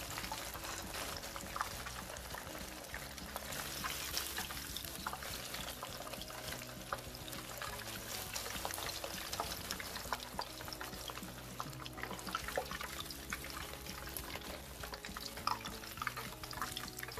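Cornstarch-coated beef strips deep-frying in hot oil, a steady crackling sizzle. A metal slotted spoon scrapes and clinks in the pan as the cooked pieces are lifted out.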